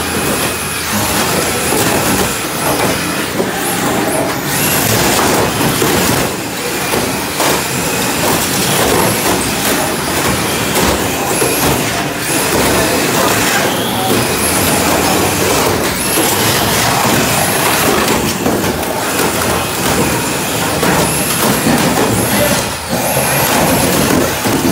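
Several radio-controlled derby cars running at once on an OSB plywood floor: a loud, steady mix of high motor whines and tyres scrubbing the boards, with short knocks of the cars hitting each other now and then.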